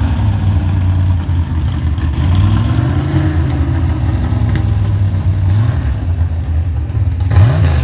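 A car engine idling with a steady low rumble, revved up and back down a few times, with a quick sharp rev near the end.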